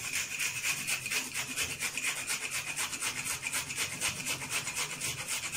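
A red onion being grated on a small metal hand grater: rapid, even back-and-forth rasping strokes.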